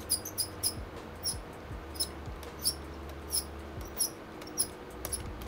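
Failing cooling fan in a Lenovo Legion Y545 gaming laptop giving short, high-pitched squeaks at an uneven pace, about two a second, like a mouse, over the steady hum of the running fans. The squeaking is the sign of the failing fan that needs replacing.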